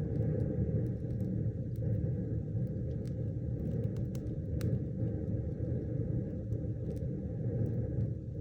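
Wood fire burning hard in a fireplace: the flames make a loud, steady low rumble, with scattered sharp crackles and pops from the burning wood.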